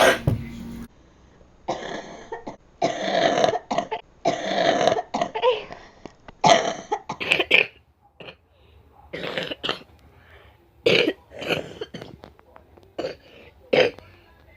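Chesty coughing in repeated fits: a dozen or more short, harsh coughs in clusters with brief pauses, including a quick run of coughs about halfway through.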